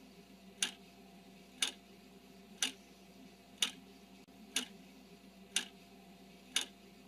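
Clock ticking sound effect, one tick a second, counting down a ten-second countdown timer; seven sharp ticks in all.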